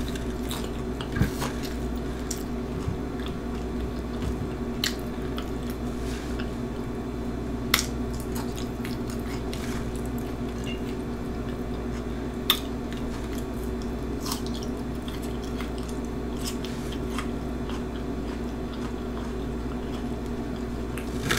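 Close-up chewing of Flamin Hot Cheetos nachos with cheese and sour cream: wet, squishy mouth sounds with scattered sharp clicks every second or few. A steady low hum runs underneath.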